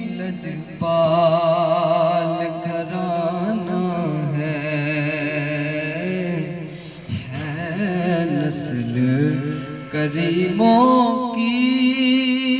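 A man singing a naat, an unaccompanied Urdu devotional song, in long, drawn-out notes that waver with heavy vibrato, with a brief break about halfway through.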